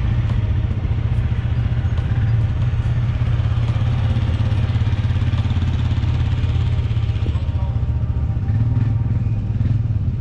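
An engine running steadily at idle, a low even rumble that holds throughout.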